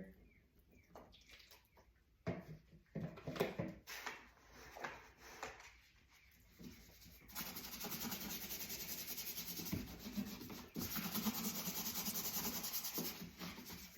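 A brush scrubbing a stained spot inside a dishwasher. Short rubs and light knocks come first, then from about halfway through a steady, fast back-and-forth scrubbing.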